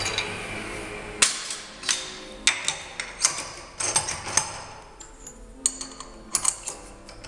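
A steady machine hum stops about a second in. It is followed by a string of sharp metal clicks and clinks as tooling is handled and fitted at a vertical milling machine's spindle nose.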